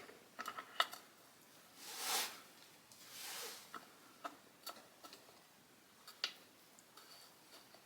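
Faint, scattered light clicks and ticks of small metal transmission gears and parts being handled and fitted onto their shafts, with two soft rustling swells about two and three seconds in.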